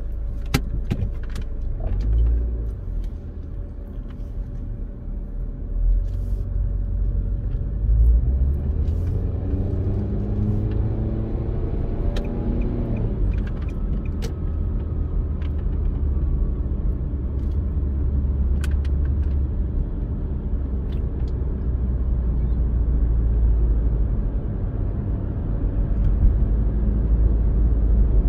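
Car driving, heard from inside the cabin: a steady low rumble of engine and road noise. Near the middle the engine note rises as the car accelerates, then drops away. A few sharp clicks are scattered through.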